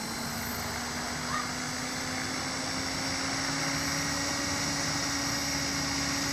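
Electric SAB Goblin 500 RC helicopter spooling up on the ground: a steady motor-and-rotor hum whose pitch rises slowly and evenly, over a faint high whine.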